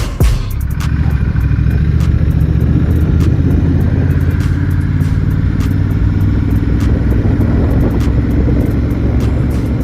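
Honda Rebel 1100's 1084 cc parallel-twin engine running steadily under way, a loud, even low rumble.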